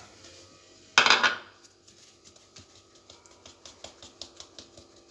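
Flour being sifted through a metal sieve over a bowl: a louder clatter about a second in, then light, rapid ticks of the sieve, several a second.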